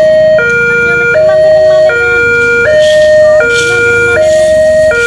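Railway level-crossing warning siren sounding a loud alternating two-tone electronic wail, the pitch switching about every three quarters of a second; the uploader describes this crossing's siren as faulty. A low rumble runs beneath it.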